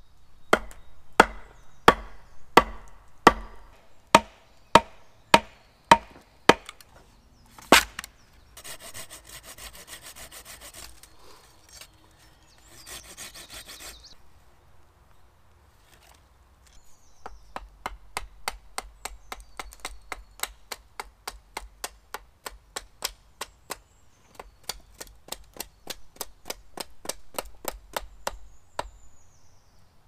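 Hand tools working wood: a run of loud, sharp chopping strokes about every two-thirds of a second, then several seconds of rasping like sawing, then a long run of quicker, lighter strokes on wood, about three a second.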